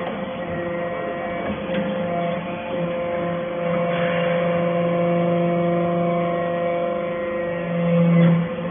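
Hydraulic scrap-metal baler's motor and pump running with a steady, humming tone, growing louder near the end before the lowest part of the hum cuts off.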